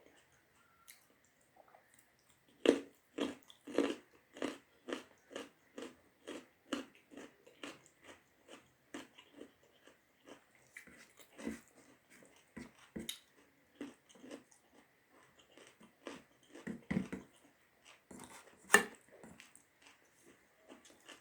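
A person chewing a big mouthful of rice meal (dal bhat) close to the microphone, in a steady rhythm of about two chews a second. It starts a few seconds in with louder first bites, and there is a sharp smack near the end.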